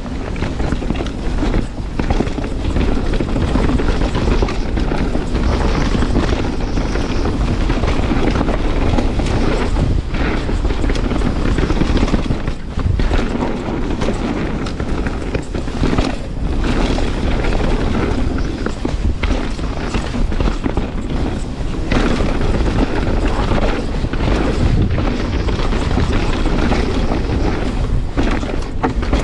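Canyon Spectral 29 full-suspension mountain bike riding down a rough, chunky trail: constant wind buffeting on the on-board microphone, with tyre roar and the rattle and thumps of the bike over rough ground rising and falling.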